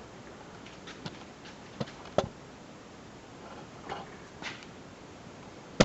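Scattered light clicks and taps of the door handle assembly and its metal linkage rod being handled, with a sharper click about two seconds in and another near the end.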